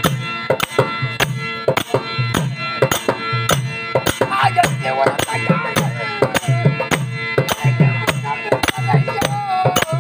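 Folk-theatre music: a two-headed barrel drum beats a fast, even rhythm of about three strokes a second over a steady harmonium drone. A man sings a line over it around the middle and again near the end.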